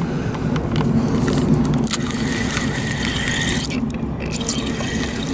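A spinning fishing reel being cranked, its gears whirring steadily, as a fish on the line is reeled in.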